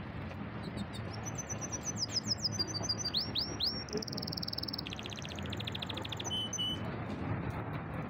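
Domestic canary singing a phrased song. It starts about a second in with a fast run of falling notes, then gives a few swooping notes, one held whistle, and a quick buzzing trill, and stops near the end. A steady low background rumble runs underneath.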